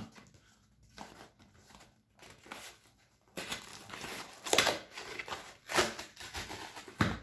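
Cardboard shipping box handled and opened by hand: faint rubbing of cardboard at first, then louder scraping and rustling in the second half with a few sharp tearing sounds.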